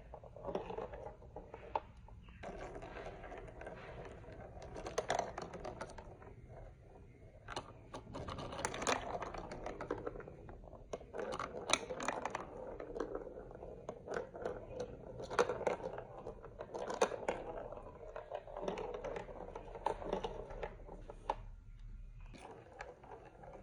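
Plastic marble run building-block pieces being handled, with steady scraping and many sharp clicks and clacks.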